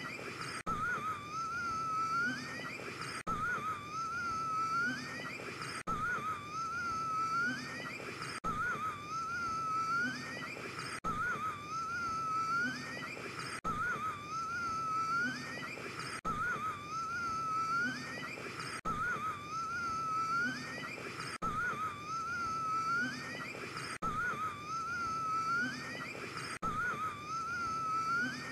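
A man's wheezing gasp for breath with a whistling tone that wavers and then rises in pitch. The same short gasp is looped over and over, about every two and a half seconds, with an abrupt cut at each repeat.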